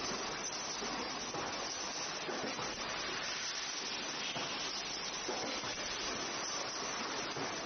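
Steady, even hiss of factory background noise around a thermoforming machine, with no distinct knocks or rhythm.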